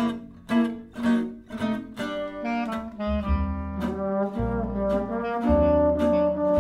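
Swing jazz quartet playing a slow tune: trombone and clarinet carrying the melody over rhythm guitar chords strummed about twice a second and plucked double bass. A horn note is held in the second half.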